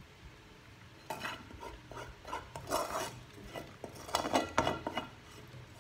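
Serving utensils and cutlery scraping and clinking against ceramic plates as food is moved and arranged on a plate, in irregular bursts, busiest and loudest about four seconds in.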